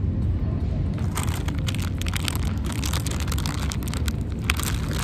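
Plastic Cheetos snack bag crinkling and crackling as it is pulled open, starting about a second in, over a steady low rumble.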